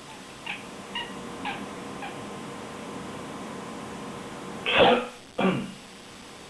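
A cat gives four short, soft mewing calls about half a second apart, complaining after a person's cough. Near the end, a person coughs twice, louder than the cat.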